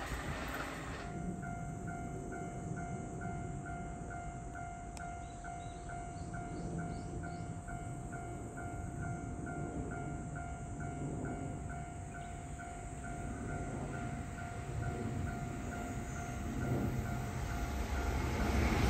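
Level-crossing warning bell ringing at about two dings a second over a steady tone, starting about a second in and stopping shortly before the end. Under it, the rumble of an approaching E657 electric limited express grows louder over the last few seconds.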